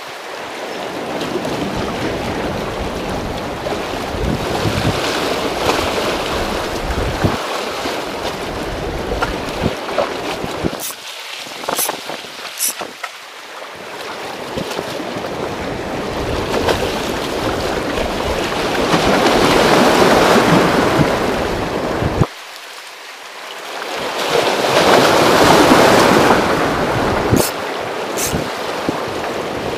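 Sea waves washing against a concrete tetrapod breakwater, swelling louder twice in the second half, with wind buffeting the microphone.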